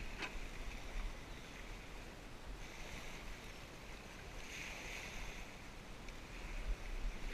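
Wind rumbling on the microphone over the soft, steady wash of small lake waves lapping at the shore, with two gentle swells of hiss in the middle.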